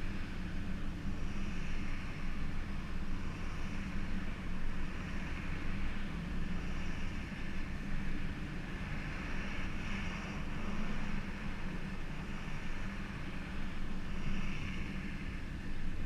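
Holden Commodore VR's 3.8-litre V6 running steadily, a low rumble with a hiss that swells and eases every second or two.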